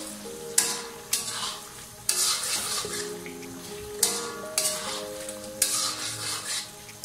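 Metal spatula stirring and scraping chicken karahi around a black metal karahi, with sizzling as it fries on high flame at the bhuna stage; sharp scrapes come every second or so. Background music with sustained notes plays underneath.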